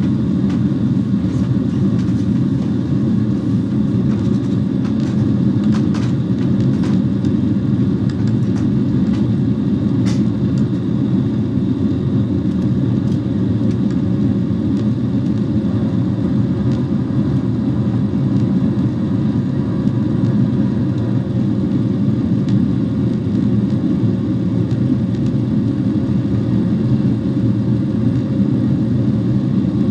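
Steady low roar of an airliner's jet engines and rushing air heard inside the passenger cabin in flight, with a faint steady hum above it.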